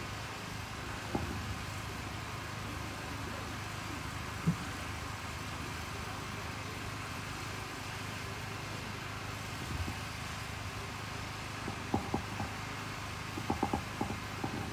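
Steady outdoor background noise, with a few short faint knocks about twelve seconds in and again near the end.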